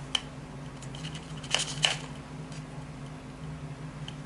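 A few light clicks and rustles as a small plastic Roomba part is handled and set down, over a steady low hum.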